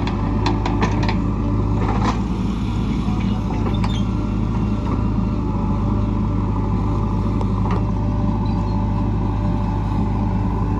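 Heavy diesel engine running steadily at a constant speed, a low drone, with a few sharp clicks and knocks in the first couple of seconds and again at about four and eight seconds in.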